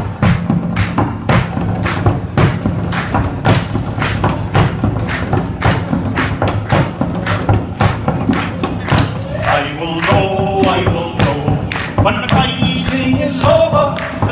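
Bodhrán frame drum beaten with a tipper in a steady rhythm, about three beats a second. About ten seconds in, male singing starts over the drumming.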